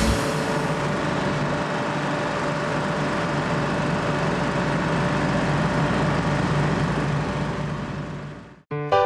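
Diesel-electric locomotive idling: a steady engine hum with a held mid tone. It fades out near the end, and music comes in.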